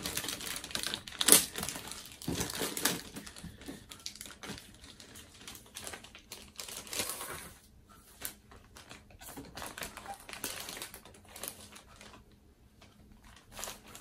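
Clear plastic bag crinkling and rustling as it is handled and opened, with small clicks and taps of kit parts; the loudest rustle comes about a second in, and after about eight seconds the handling thins out to scattered ticks.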